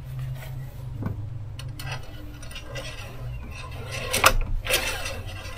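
Oil dipstick of a 2007 Hummer H3 being handled to check the level after an oil change: rubbing and scraping with a few clicks, the loudest a sharp knock about four seconds in, over a steady low hum.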